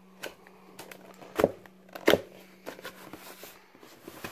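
Cardboard box being handled and opened: rustling and scraping of the flaps, with two louder knocks about a second and a half and two seconds in. A faint steady hum runs underneath until near the end.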